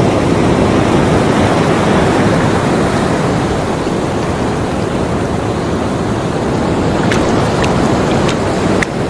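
Ocean surf: a steady rush of waves breaking and washing, easing a little mid-way, with a few faint ticks near the end.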